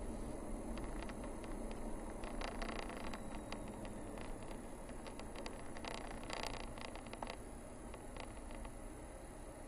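Vehicle driving slowly over a rough forest road, heard from inside the cabin: a steady low road and tyre rumble with scattered ticks and light rattles, thickest in two clusters around the middle.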